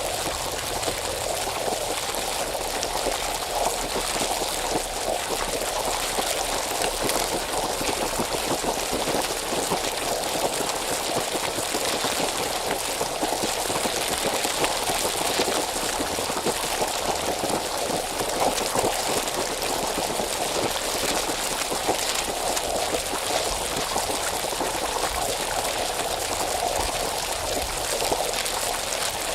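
Hot spring water bubbling, a steady dense churn of bubbling and gurgling with no let-up.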